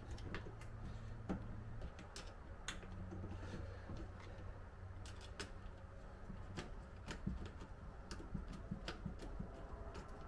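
Scattered light clicks and handling noises of hands fitting wires into an inline fuse holder.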